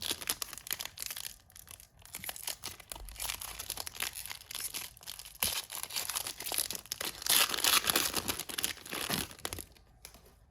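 Plastic foil trading-card pack wrapper being crinkled and torn open by hand, crackling unevenly, loudest about three-quarters of the way through and stopping shortly before the end.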